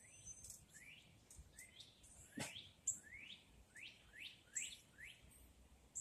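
Small wild songbirds calling: a faint string of short rising chirps, nearly two a second, with a single sharp click about two and a half seconds in.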